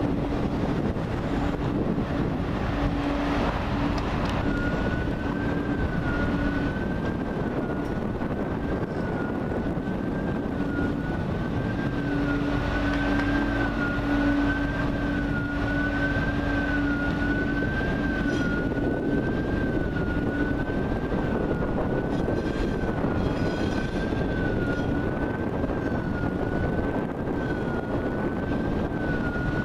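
TGV high-speed trains running in over the points: a steady rumble with a low hum that comes and goes. From about four seconds in, a high whine wavers slowly up and down.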